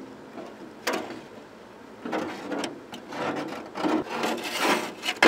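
Parts being worked loose by hand inside a classic VW Beetle door, scraping and rubbing against the door's sheet metal: one short scrape about a second in, then a run of uneven scrapes over the last three seconds.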